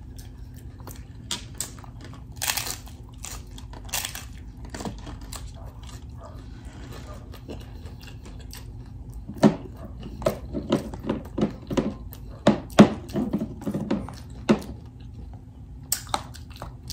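Close-miked chewing and biting of a hard-shell corn taco: a few sharp crunches at first, then a dense run of quick chewing crunches about halfway through.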